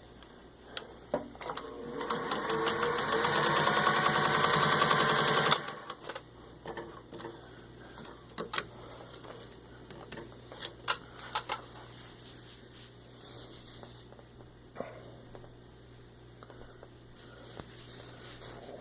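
1935 Singer 201 sewing machine with a 1950s replacement motor stitching through six layers of denim, speeding up from slow to fast over about four seconds and then stopping suddenly. After it stops, scattered clicks and knocks.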